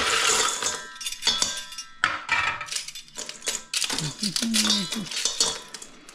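Ice cubes clattering out of a stainless steel ice cube tray into a stainless steel bowl, with metal clinks and rattles from the tray and its lever-grid divider. A burst of clatter comes right at the start and several more follow, some with a brief metallic ring.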